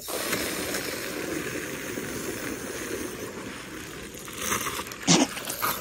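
Water from a garden-hose spray nozzle rushing into the plastic tank of a water-gun backpack, a steady hiss that starts suddenly as the nozzle is opened. A couple of louder, sharper bursts come near the end.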